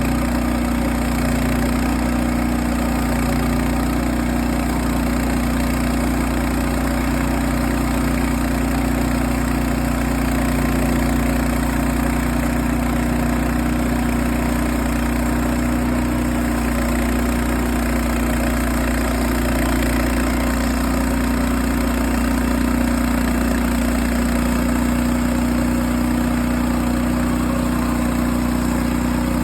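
Engine idling steadily with an even hum, most likely the gas engine of a newly acquired Frontier portable sawmill.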